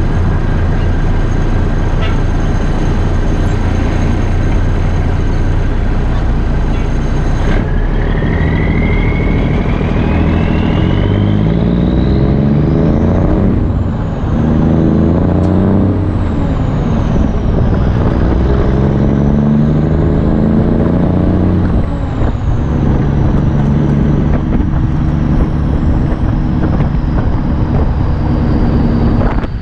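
Straight-piped Cummins NTC 240 turbo diesel running steadily, then pulling through the gears. Its revs climb and drop back several times at the shifts, with a turbo whistle rising and falling along with them, before it settles to a steady pull.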